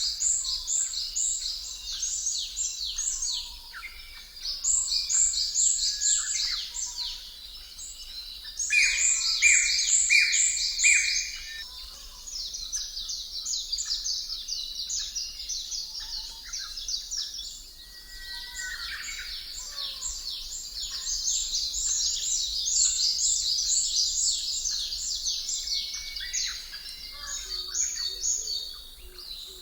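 Ambient birdsong: a dense chorus of small birds chirping rapidly in high notes, with a short run of three lower, longer calls about nine seconds in.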